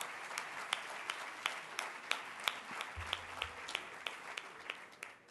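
Audience applauding, with a few sharp individual claps standing out, dying away near the end.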